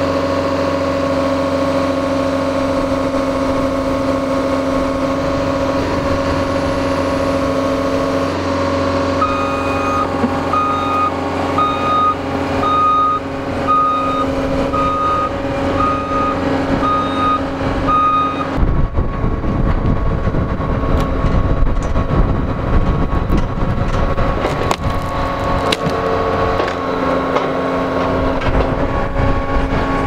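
John Deere 333G compact track loader's diesel engine running steadily, then backing up with its reversing alarm beeping about once a second for roughly ten seconds. After that comes a rough low rumble with the engine still running.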